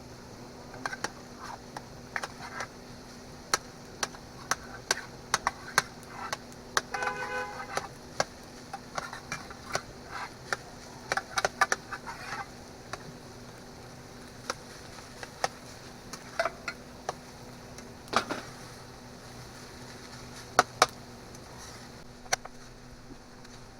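Irregular sharp clicks and light knocks, like things being handled, over a steady low hum, with a short pitched sound about seven seconds in.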